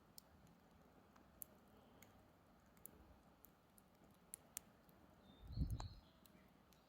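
Campfire firewood crackling faintly with scattered sharp pops, and a short low thump about five and a half seconds in.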